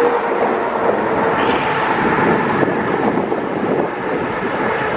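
Steady road noise of a moving car.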